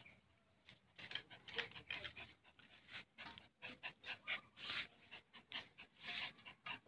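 Small dog panting and snuffling close by, in short, faint, irregular puffs.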